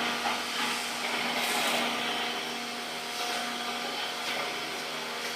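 Small electric air blower running with a steady whir and a rush of air, the hiss swelling a few times as the air stream moves.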